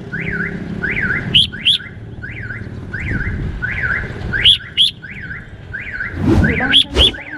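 Red-whiskered bulbul calling: a steady run of short chirping notes, about two a second, broken four times by a pair of sharp rising whistles. A low background rumble sits underneath.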